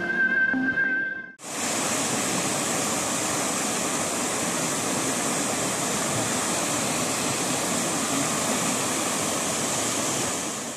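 Floodwater rushing fast through a break in the road: a steady, even roar of churning water that starts about a second and a half in, after the tail of a short musical jingle.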